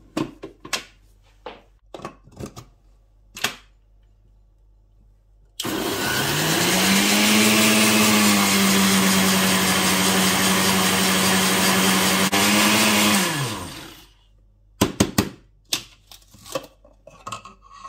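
Electric blender grinding granulated sugar into icing sugar in a stainless-steel blade jug: a few clicks as the jug and lid are fitted, then the motor starts about five seconds in, speeds up to a steady loud run with the sugar rattling round the blade, and winds down after about eight seconds. A couple more clicks follow as the lid is handled.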